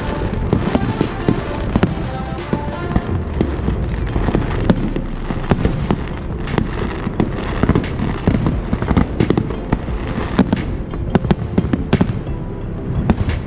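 Fireworks display: aerial shells bursting in a rapid, irregular string of sharp bangs and crackles.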